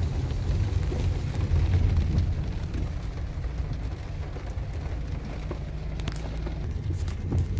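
Rain falling over a low steady rumble, with a few sharp ticks near the end.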